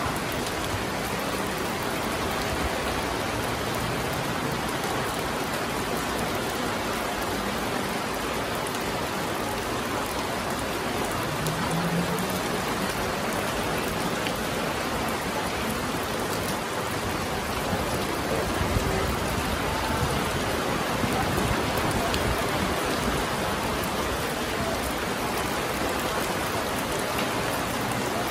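Steady rain falling on wet stone paving, an even patter of drops with no let-up.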